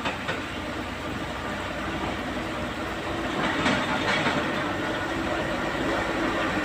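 Komatsu hydraulic excavator at work loading sandstone, its diesel engine and hydraulics running steadily, with a few clattering knocks of rock a little after halfway.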